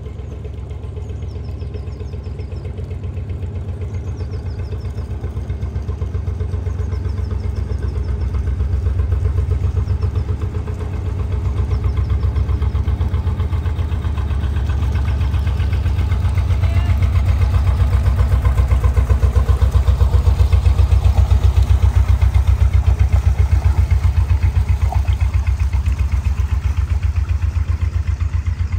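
Slow-running diesel engine of a working canal narrowboat passing close by with a steady low beat, growing louder to its loudest about two-thirds of the way through as the boat draws level.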